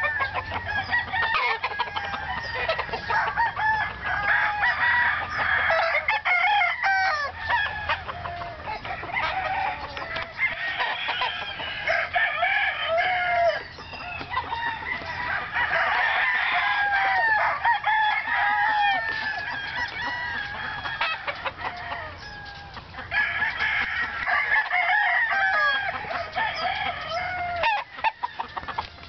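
Several roosters crowing one over another almost without pause, with clucking between the crows. Brief lulls come about 13 and 22 seconds in.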